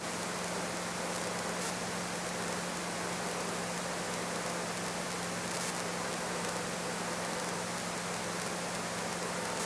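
Steady hiss with a faint, constant low hum underneath: the background noise of the Robinson R22 helicopter's cockpit audio in flight, with no one talking.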